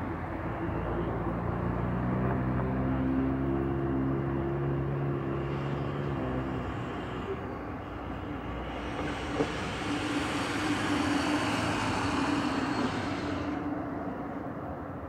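Road traffic. A heavy vehicle's engine drones with a steady low pitch for the first several seconds, then another vehicle passes, swelling in the middle and fading near the end.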